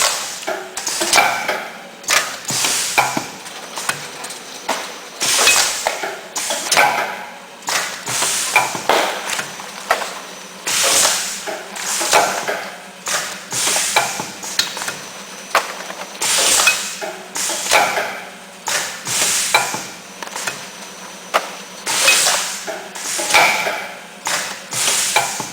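Automatic tofu packaging machine running through its cycle. It makes a repeating clatter of mechanical strokes and short noisy bursts about every second and a half, over a steady low hum.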